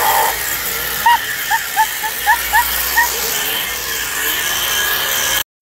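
Toy chainsaw prop buzzing steadily with its noisy engine sound effect, with a quick run of short high-pitched giggles from about a second in. The sound cuts off suddenly near the end.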